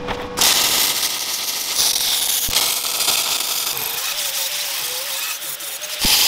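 MIG welder crackling and hissing while tack-welding steel, interleaved with an angle grinder working the steel, its whine wavering under load in the second half. Just before the end the sound cuts abruptly to a fresh weld's brighter hiss.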